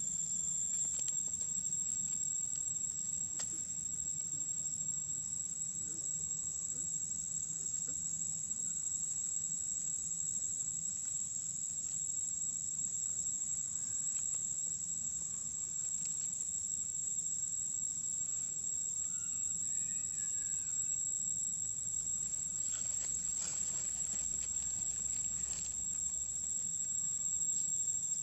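Insects droning steadily at a high, even pitch, with a few soft rustles in dry leaf litter and some faint chirps about two-thirds of the way through.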